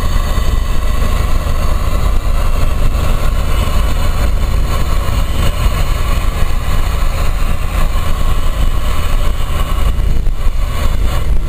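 Cab noise of a 2005 Fiat Ducato turbo-diesel camper at motorway speed: a steady engine and road rumble with a hiss over it.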